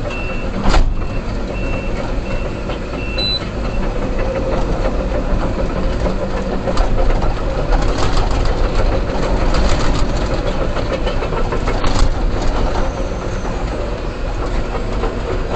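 Case 245 excavator's diesel engine running steadily under load. A reversing alarm beeps during the first few seconds, and there is a sharp knock about a second in.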